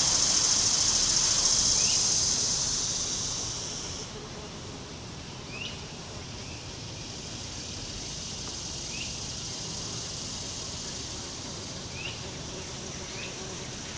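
Outdoor insect chorus: a steady high-pitched drone, loudest for the first few seconds and then easing to a fainter level. A short rising chirp comes through every two to three seconds.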